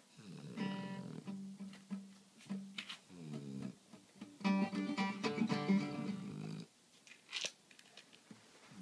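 Acoustic guitar being strummed. The playing breaks off about two-thirds of the way through and starts again right at the end.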